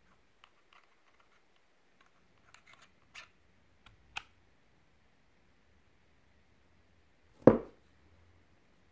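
Small metallic clicks and scrapes from a rebuildable dripping atomizer's metal top cap being fitted over its deck and turned on a vape mod. Then one much louder knock about seven and a half seconds in.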